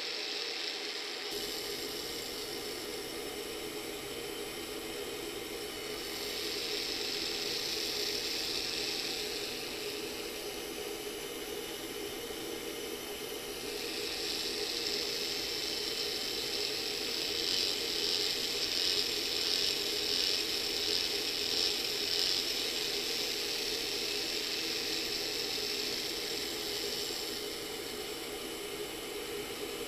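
Homemade magnetic-rotary tattoo machine running: a brushless motor drives the needle bar through a magnetic coupling, making a steady mechanical buzz. It grows louder for a few seconds about a fifth of the way in, and again through most of the middle.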